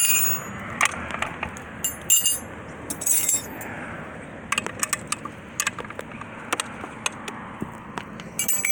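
Small metal hand tools clinking and clattering against each other in irregular knocks and clinks while being handled, with a busier cluster near the end.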